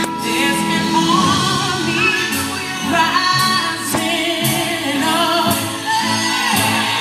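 A gospel song in which a woman sings a melody with vibrato over band accompaniment, with cymbal strokes about once a second.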